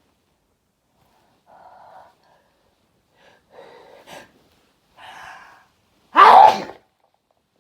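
A person's big sneeze: three gasping in-breaths of the build-up about a second and a half apart, then one loud sneeze about six seconds in.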